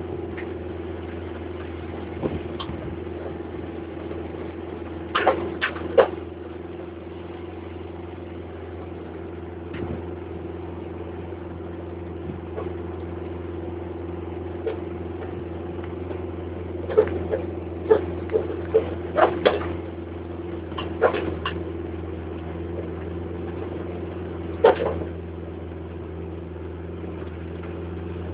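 Vehicle engine humming steadily on the move, with sharp rattles and knocks now and then: a couple about five seconds in, a cluster of them a little past the middle, and one more near the end.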